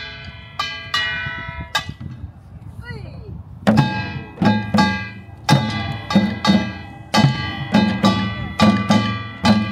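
Korean pungmul drumming: a small brass hand gong (kkwaenggwari) rings out a steady beat, and about four seconds in the janggu hourglass drums and buk barrel drums come in with it, playing a driving rhythm of loud, evenly spaced strikes.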